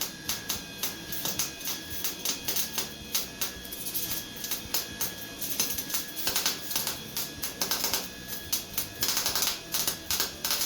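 Background music with held notes and a fast, ticking beat.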